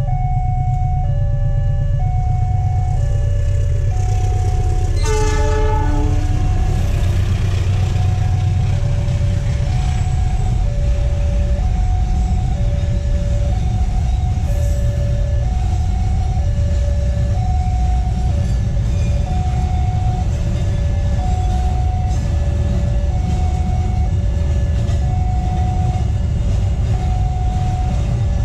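Level-crossing warning alarm sounding two alternating tones, each about a second long, over the steady low rumble of a container freight train passing over the crossing. About five seconds in, the train's horn sounds once, briefly.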